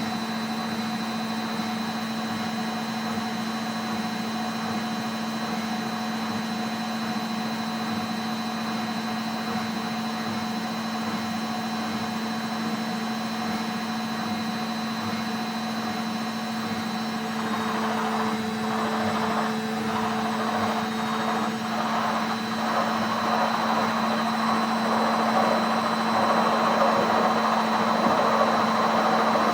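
Indesit WISN 101 washing machine running its rinse cycle: a steady motor hum with a faint high whine. About two-thirds of the way in, a louder rushing, swishing noise builds up and grows to the end.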